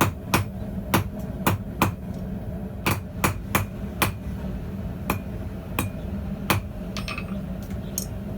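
Hand hammer striking hot steel on a small, hard bread loaf anvil: quick runs of about three blows a second for the first four seconds, then slower, spaced blows, over a steady low hum.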